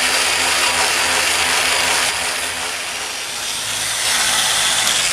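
Handheld power tool grinding down a plastic throttle tube, a steady loud grinding hiss that eases slightly about two seconds in and picks up again near four seconds.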